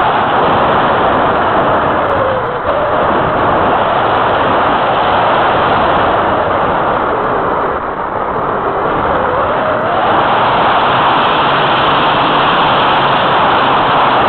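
Wind rushing over a keychain camera mounted on the wing of an Easy Glider Pro radio-controlled glider in flight: a loud, steady rush that eases briefly about two and a half seconds in and again near the middle, then swells back.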